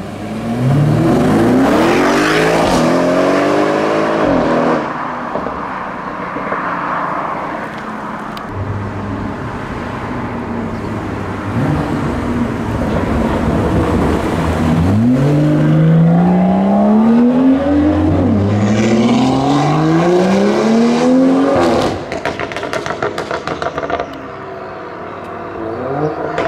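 Audi RS6 Avant's twin-turbo V8 accelerating hard, revs climbing through a gear change. Then, about halfway through, a turbocharged straight-six BMW M2 pulls away with revs rising through several quick upshifts. Near the end comes a string of exhaust crackles and pops as the throttle closes.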